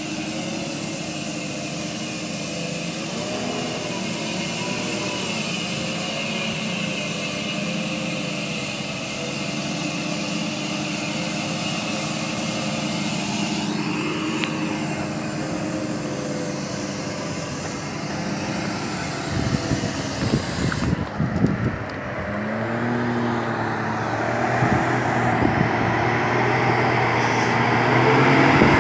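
Diesel engines of Nissan PKD 411 ten-wheeler trucks running and passing, their pitch rising and falling as they work. A stretch of rough crackling noise comes in about two-thirds through, and the sound grows louder near the end.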